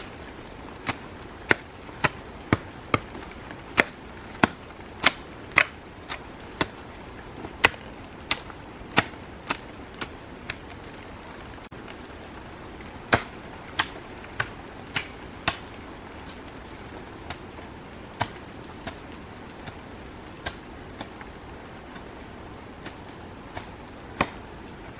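Repeated sharp strikes of a hand tool on fence material, in a steady run of about one and a half blows a second, a pause, a shorter run, then fewer, lighter blows.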